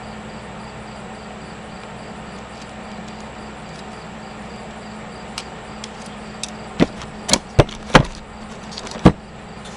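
A steady low hum, then a run of sharp clicks and knocks over the last four seconds, the loudest near the end.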